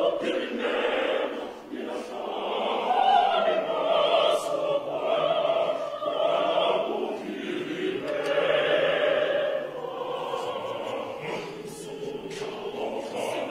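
Choir singing in long phrases of held, blended notes, with brief breaths between phrases and a softer passage near the end.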